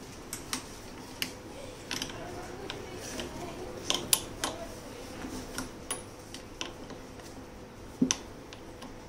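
Small flat metal spanner clicking and clinking on the pedal spindle as the pedal is tightened into the exercise bike's crank arm. The clicks are light and irregular, the loudest about four seconds in and again near the end.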